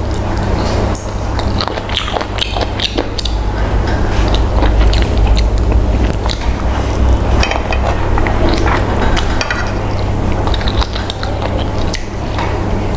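A person chewing and biting food close to the microphone, with many small wet clicks and smacks: eating a fried chicken and rice meal. A steady low hum runs underneath.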